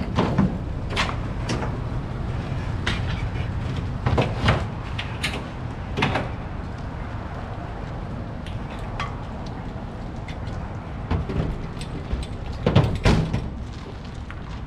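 Heavy truck's diesel engine running with a low, steady rumble, under a string of sharp clunks and knocks; the loudest come right at the start and about thirteen seconds in.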